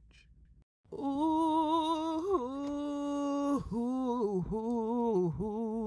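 A voice humming a slow, wordless tune with vibrato, starting about a second in. It holds long notes, steps down in pitch, then goes on in shorter notes.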